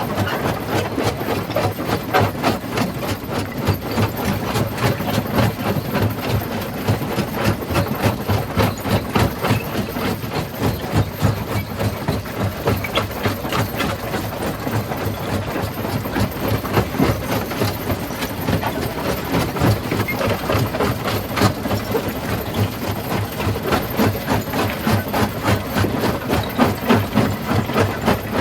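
Rock crushing machine running: a steady engine under a dense, fast, unbroken rattle and knocking of stone.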